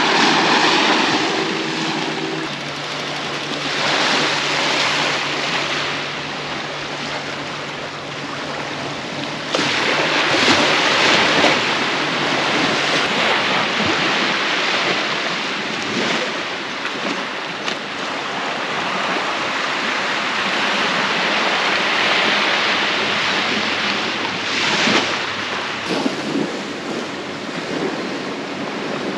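Small sea waves washing onto a sandy shore, swelling and easing every few seconds, with wind in the background.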